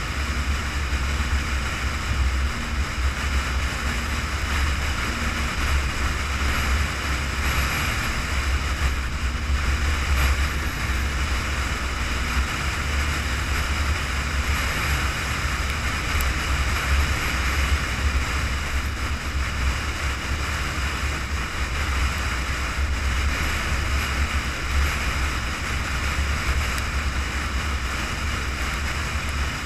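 Steady road and wind noise of a vehicle cruising at highway speed: a deep, constant rumble under an even hiss.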